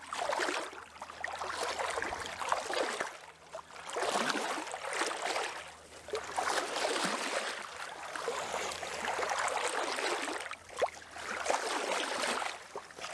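Water lapping and sloshing against a moored boat's hull in irregular swells every second or two, over a faint steady low hum.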